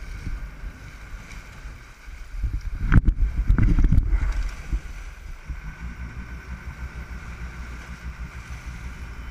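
Wind buffeting the microphone over the steady low rumble of a sportfishing boat under way. A louder burst of wind and water noise comes about three seconds in and lasts about a second.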